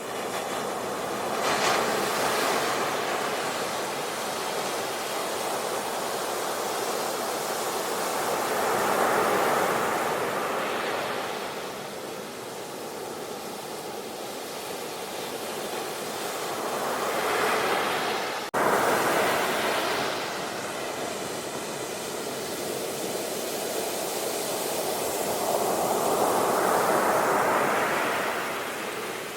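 Ocean waves breaking and washing up a beach: a steady rush of surf that swells and fades in about four slow surges. About two-thirds of the way through there is a sudden, very brief dropout in the sound.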